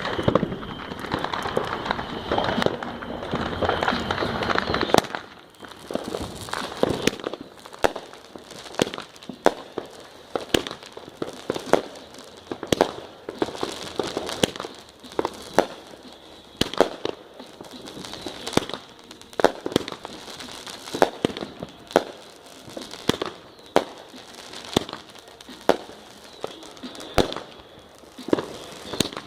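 200-gram firework cake going off: about five seconds of dense rushing crackle, then a long run of separate sharp bangs, roughly one or two a second.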